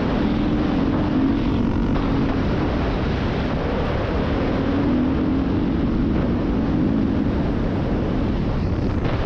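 Off-road vehicle engine running at speed over sand dunes, its note wavering, under heavy wind rush on a helmet-mounted microphone.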